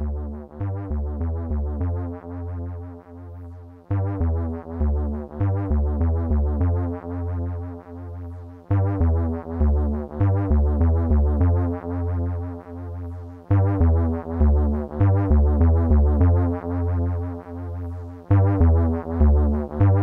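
Electronic synthesizer music: a deep bass line under short, quickly fading notes, in a phrase that repeats about every five seconds.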